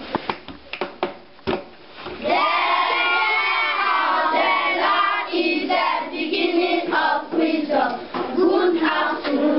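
A class of schoolchildren clapping, then singing together in unison from about two seconds in, with claps going on under the singing.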